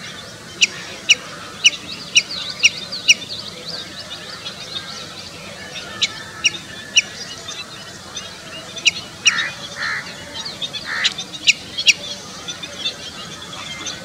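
Common redshank calling: a quick series of six short, sharp piping notes about half a second apart, then more piping calls in small groups. Faint higher twittering runs behind, and a few short hoarse sounds come about two-thirds of the way through.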